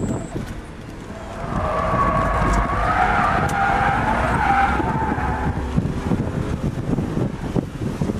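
BMW E36 M3's straight-six engine running under load, heard from inside the cabin, while the street tyres squeal through a slide. The squeal rises about a second in, wavers in pitch for some four seconds, then fades, leaving the engine.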